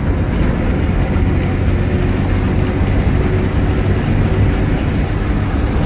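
Intercity bus under way, heard from inside the cabin: a steady low engine and road drone with a constant hum.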